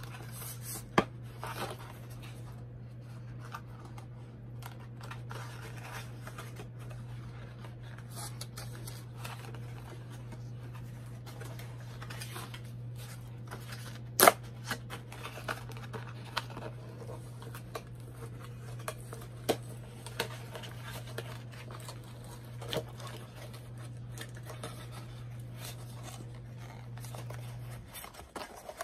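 Cardboard toy box being handled and opened: scattered taps, scrapes and rustles of the packaging, with one sharp snap about halfway through. Under it runs a steady low hum that stops shortly before the end.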